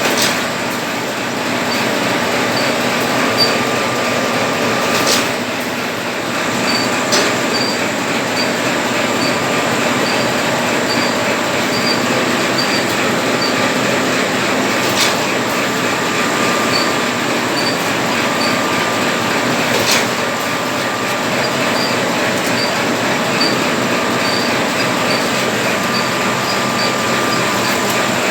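Automatic paper-napkin packing machine running steadily. It makes a continuous mechanical clatter with a faint high whine, a light tick repeating a little more than once a second, and a few sharper clicks.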